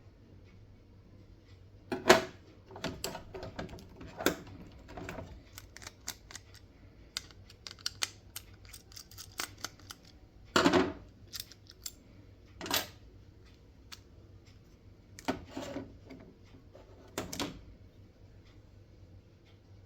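Irregular clicks and knocks at no steady rhythm, with a sharp one about two seconds in and a few heavier ones later on.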